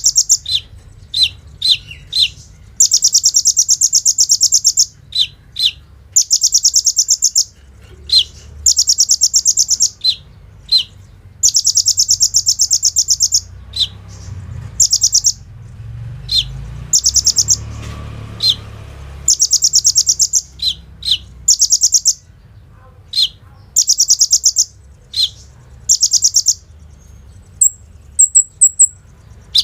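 Kolibri ninja, a sunbird, singing at full strength: sharp single chips alternate with long, very fast rattling trills of a second or two, like machine-gun fire, over and over. Near the end a few thin, high chirps.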